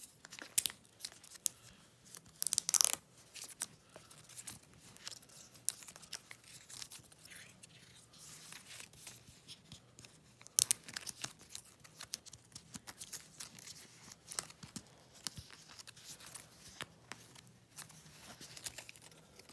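Paper and plastic packaging being handled, rustling, crinkling and tearing, with many short sharp clicks and taps. The loudest bursts come about three seconds in and again near eleven seconds in.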